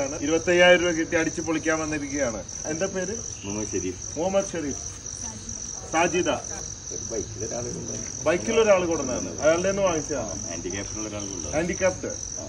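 Crickets chirping in a steady, high, pulsing trill under close talking, which is the loudest sound.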